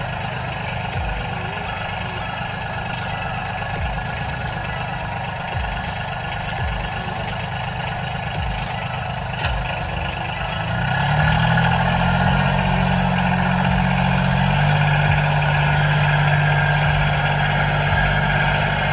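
Small electric motor on a homemade toy tractor running steadily, driving a mini water pump. About ten seconds in it turns louder, with a steady low hum made of several tones.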